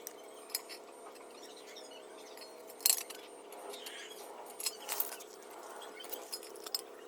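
Scattered light clicks and clinks, like small hard objects being handled, the loudest about three seconds in, over a faint steady hum.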